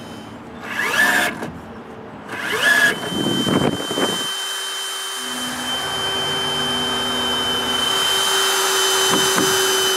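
Cordless drill/driver driving screws into cedar deck rails: two short spin-ups in the first three seconds, then a steady run of several seconds.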